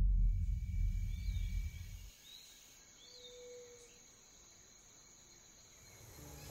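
A deep low rumble fading out over the first two seconds, the tail of a cinematic title-card impact, then faint woodland ambience: a few soft bird chirps over a steady high insect hum.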